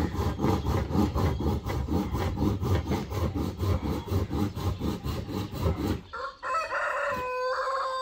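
A hand saw cutting a wooden board in quick, even strokes, about five a second, which stop about six seconds in. A rooster then crows: one long call that ends near the close.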